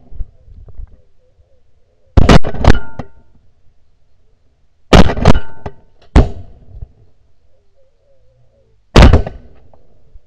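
Shotguns firing at a flock of geese overhead. A quick burst of about three shots comes around two seconds in, another burst around five seconds, then single shots at about six and nine seconds, from more than one gun.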